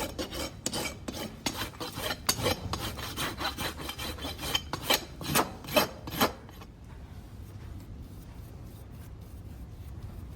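Farrier's hoof rasp stroked back and forth over a horse's hoof, a run of quick rubbing strokes, the last few the loudest, that stop about six seconds in. It is the finishing rasp over the hoof wall after the shoe is nailed on and the nails clenched.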